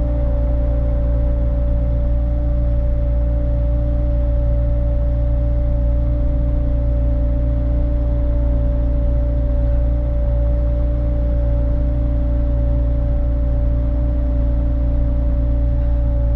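Bobcat T66 compact track loader with a snow blower attachment, running steadily. A low engine drone carries a steady whine on top.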